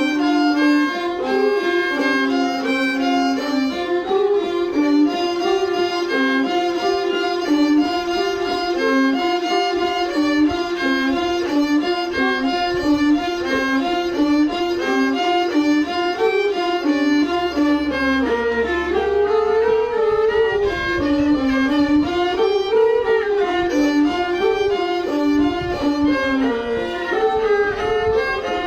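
Bowed string instrument playing a melody, moving note by note at first and then gliding up and down between notes in the second half.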